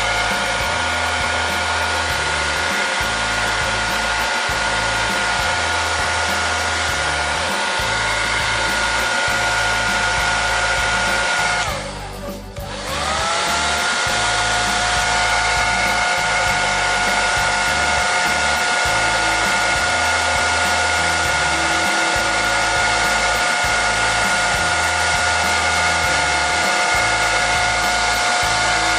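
A 2000-watt hairdryer blowing steadily with a motor whine over a hiss, heating the phone to soften the screen adhesive. About twelve seconds in it briefly cuts out, the whine sliding down and then climbing back up as it comes on again.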